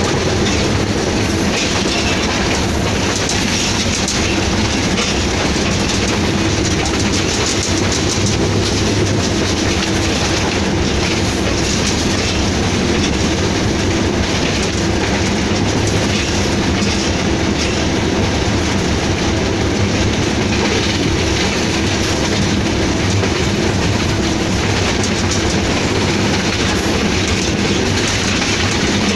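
Inside the cab of a running Hitachi PHA-20 diesel-electric locomotive: the diesel engine runs with a steady low hum under the continuous rattle and clatter of the wheels on the rails.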